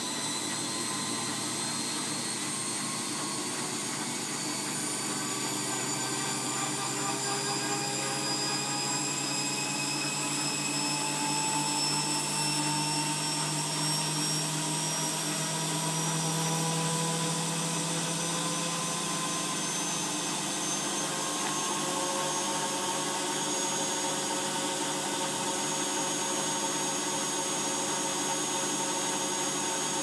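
Bosch WFF2000 front-loading washing machine in its final spin: the drum motor's whine rises slowly and steadily in pitch as the spin speeds up. A lower hum swells in the middle and fades about two-thirds of the way through.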